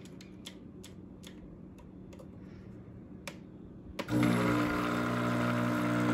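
Nescafé Dolce Gusto capsule coffee machine: a few light clicks as its control dial is turned and pressed, then about four seconds in its pump starts with a sudden, steady buzzing hum as it begins brewing into the mug.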